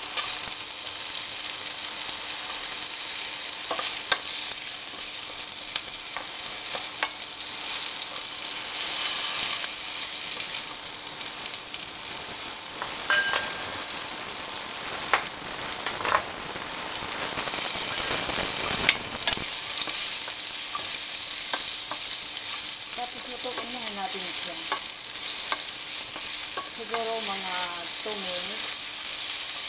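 Potato and carrot strips sizzling in hot oil in a non-stick frying pan, with occasional clicks and scrapes of a spatula stirring them.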